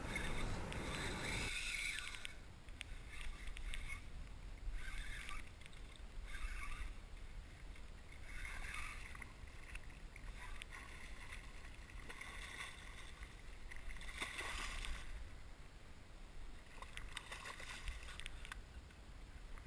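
Water sloshing and splashing at the side of a kayak in short irregular bursts while a hooked striped bass is fought, with the fish splashing at the surface beside the kayak near the end.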